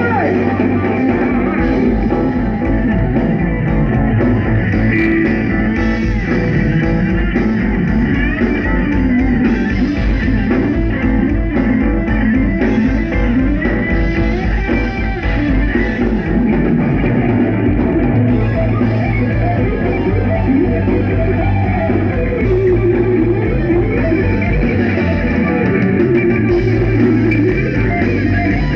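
Live rock band playing loud: electric guitar lines with bends over bass, keyboards and drums, heard from within the crowd.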